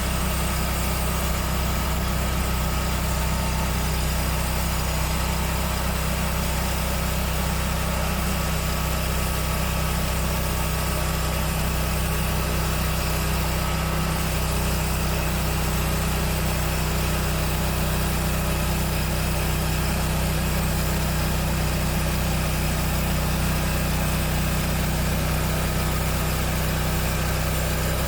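Sawmill engine running steadily at an even speed, with a constant low hum.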